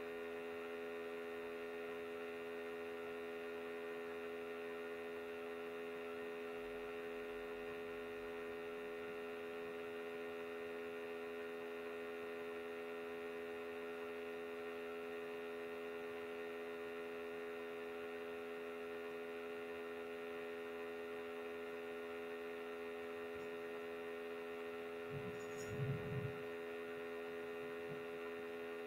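Steady electrical mains hum, a buzzing drone with many overtones. A short low thump comes near the end.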